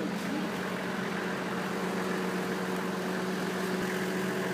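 Van engine idling with a steady, unchanging hum.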